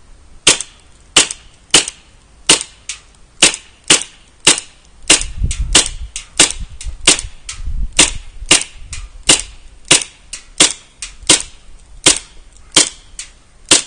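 KWA MP9 A3 gas blowback airsoft submachine gun firing single shots in semi-auto, about twenty sharp cracks roughly one or two a second. The gas is below its best in the cold, around 5 °C.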